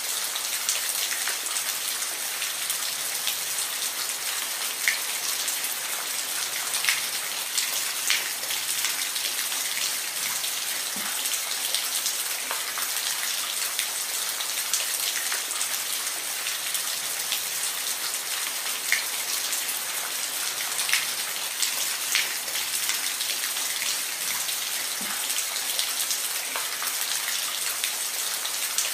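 Steady rain falling, a dense hiss with scattered louder drops striking a surface.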